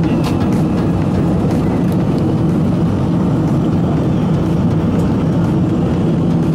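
Steady cabin noise of a jet airliner in flight: an even, low rumble of engines and rushing air heard from inside the passenger cabin.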